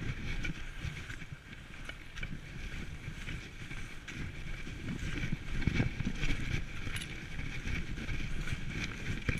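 Skis sliding and swishing through deep powder snow, with wind noise on the microphone and scattered knocks.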